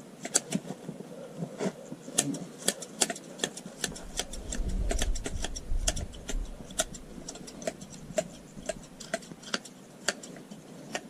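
Hand sheep shears snipping through fleece: quick, irregular metallic clicks of the blades closing, several a second. A low rumble rises in the middle and fades again.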